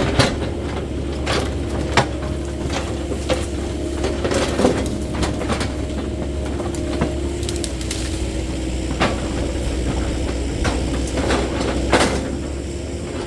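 Caterpillar 308E2 mini excavator running steadily, its engine hum carrying a constant whine, with frequent sharp cracks and knocks as it clears brush.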